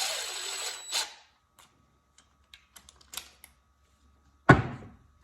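A clamp being adjusted around a glued-up ring of wooden wedges: about a second of scraping noise, a few light clicks, then one sharp knock near the end, the loudest sound.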